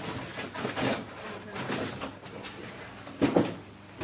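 Handling noises: irregular rustles and light knocks, with a louder knock about three seconds in.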